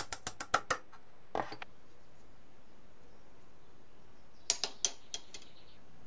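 Light hammer taps driving a door hinge's pin into its knuckle as a tight friction fit: a quick run of about seven sharp metallic taps, then a short cluster a moment later. After the middle come a few more sharp metal clicks as the stiffened hinge is handled and swung.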